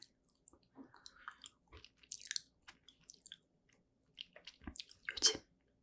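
A person chewing strawberry rare cheese tart close to the microphone: scattered wet mouth sounds and small clicks, with a louder burst of chewing near the end.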